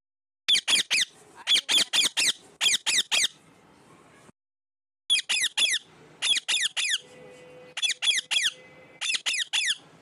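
Rose-ringed parakeet (Indian ringneck) screeching: sharp, high calls that drop steeply in pitch, in quick runs of three or four, with a break of about a second near the middle.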